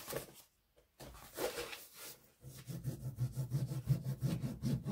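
Diamond painting canvas and its plastic cover film crinkling and rubbing against a wooden tabletop as it is unrolled off a foam roller and pressed flat by hand. It starts as a brief rustle and turns into quick, dense crackling from about halfway in.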